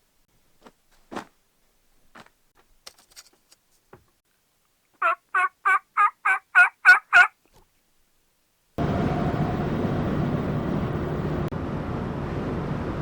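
A few light knocks, then a run of eight turkey yelps, evenly spaced and growing louder. About nine seconds in, a steady rumble of road noise from inside a moving vehicle starts and carries on.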